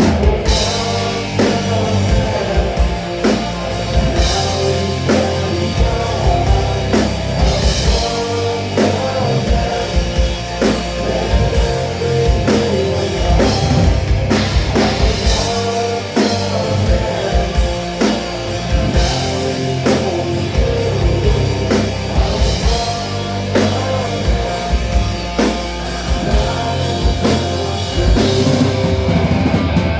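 Rock band playing a heavy, driving song: a drum kit beats steadily over electric guitar, at a constant loud level.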